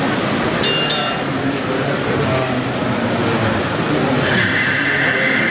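Steady hall crowd chatter, with a short high-pitched squeal about half a second in and a louder, longer high squeal from about four seconds in.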